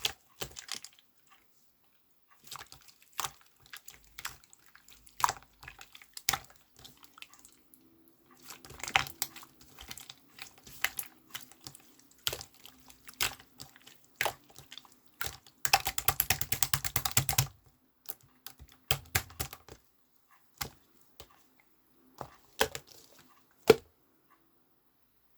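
Irregular sharp clicks and taps, with a dense rapid run of clicks lasting about two seconds past the middle.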